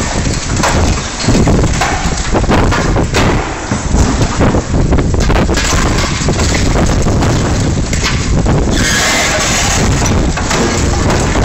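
Wind buffeting the microphone over a Liebherr 944 demolition excavator at work on a steel girder, its machinery running with scattered knocks. About nine seconds in, a louder burst of noise lasts about a second and a half.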